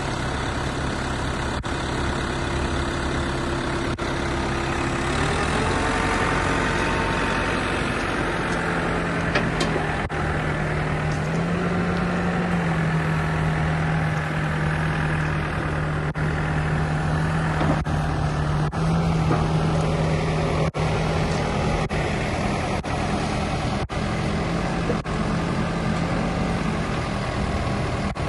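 New Holland LB75B backhoe loader's diesel engine idling, then picking up to a higher steady speed about five seconds in and running there.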